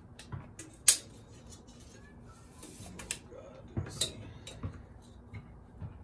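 Scattered clicks and light taps of a tape measure and a chrome turn-signal light handled against a metal headlight bucket, with one sharp click about a second in.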